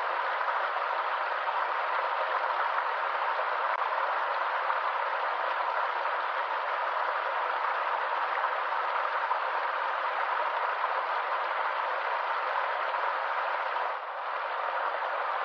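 Stream water running steadily, an even rush with a brief dip in level near the end.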